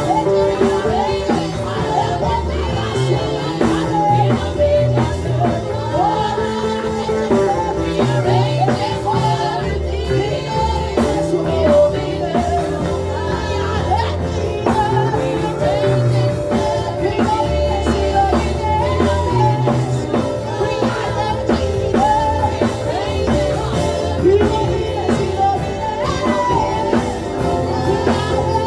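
Live worship band playing a song, with a voice singing a melody over steady bass notes and a regular drum beat.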